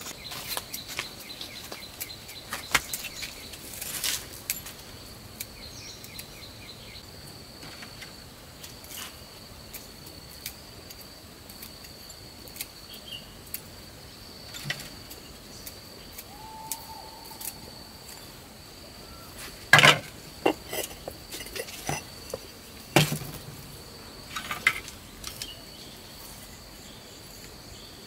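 A steady high-pitched insect trill continues throughout, with scattered light clicks and knocks. Two louder knocks come in the later part.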